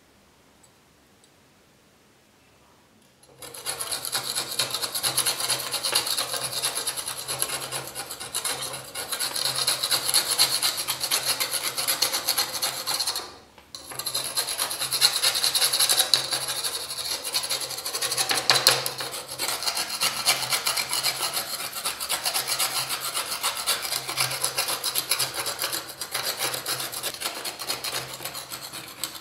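A metal scraper blade scraping flaking surface rust off a rusted steel knife blade: a dense, rapid rasping that starts about three seconds in, after near silence, and breaks off for a moment about halfway through.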